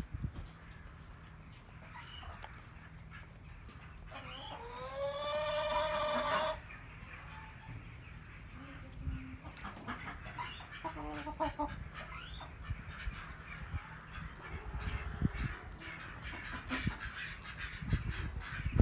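Brahma chickens calling while they feed: one long, loud call that rises in pitch and holds, about four seconds in, then a few shorter, lower clucking notes.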